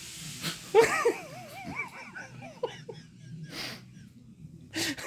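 A person laughing in high, wavering squeals that rise and fall in pitch, then breaking into short breathy wheezes near the end: laughter breaking through an attempt to keep a straight face.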